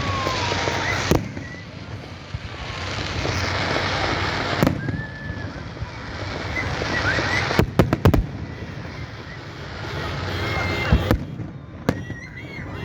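Fireworks going off: single loud bangs every few seconds and a quick run of cracks about eight seconds in, with a rushing hiss that swells and fades between bursts. Crowd voices and whistles run underneath.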